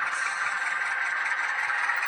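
H0-scale model train running along the track, a steady rattling whir of wheels on rail and motor.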